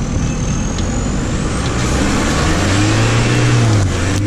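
Engine of a VW Beetle-based offroad buggy pulling hard under load as it drives through sand and ruts, with a dense rush of tyre and dirt noise. The engine note strengthens and rises about two and a half seconds in, then dips briefly near the end.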